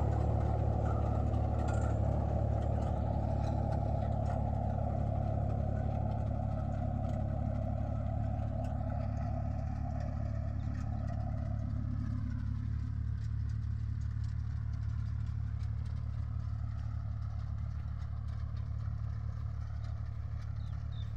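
Tractor's diesel engine running steadily as it pulls a potato planter along the rows, growing fainter as it moves away.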